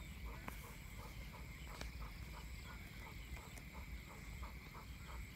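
Frogs calling in rain-soaked rice paddies: short, regular croaks about three a second, over a low steady rumble and a thin high insect-like tone.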